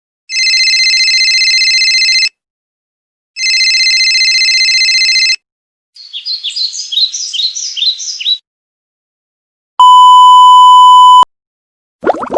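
A sequence of sound effects. First, a telephone rings twice, each ring a steady trilling tone lasting about two seconds. Then come about two and a half seconds of rapid, high bird chirps, and near the end a single pure steady beep of about a second and a half.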